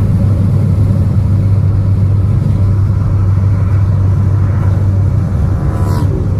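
Volkswagen Golf heard from inside the cabin while driving: a steady low rumble of engine and road noise.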